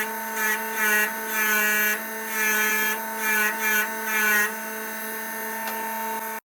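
Small power tool running steadily, its sound swelling and easing roughly once or twice a second as it is worked against metal during rust removal.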